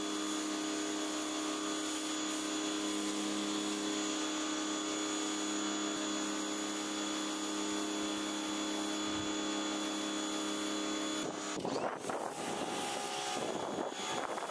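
Pressure washer motor and pump running steadily with the hiss of spray as a foam cannon coats a car in snow foam. About eleven seconds in, the steady hum turns rougher and less even.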